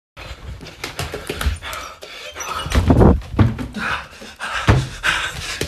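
A person breathing hard close to a handheld phone, with a run of knocks and bumps from movement and handling. Heavier thumps come about three seconds in and again near the end.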